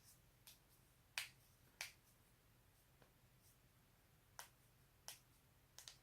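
Joints being cracked, about six sharp pops at uneven intervals, with two coming close together near the end.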